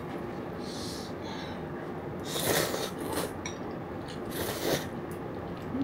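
Breathy mouth and nose noises of a person eating spicy rice cakes: three short hissing breaths, the longest lasting about a second, between two and three seconds in.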